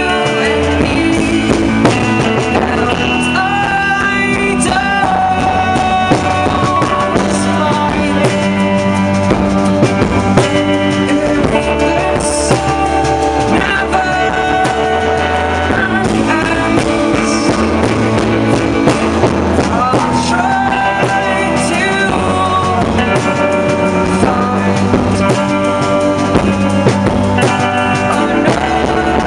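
A pop-rock song with drums, guitar and a sung melody line, playing steadily.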